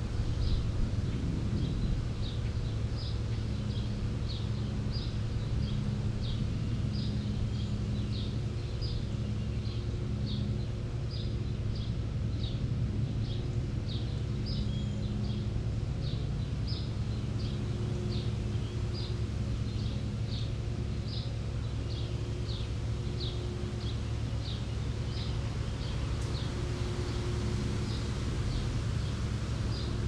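Summer outdoor ambience: a short high chirp repeated steadily about twice a second, over a low steady hum and a buzzing tone that comes and goes.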